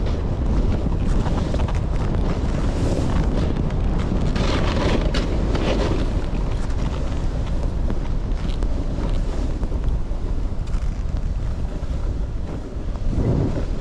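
Wind buffeting the microphone during a snowboard run, with the hiss and scrape of the board on snow growing stronger for a moment about five seconds in.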